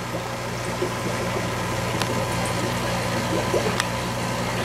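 Steady hum of an aquarium air pump driving a sponge filter, with the fizz of air bubbles rising through the tank water and a couple of faint clicks.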